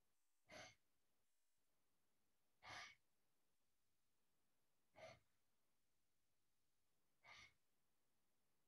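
Four short, faint exhalations from a person practising a Tai Chi form, evenly spaced about two seconds apart, with the breathing paced to the movements.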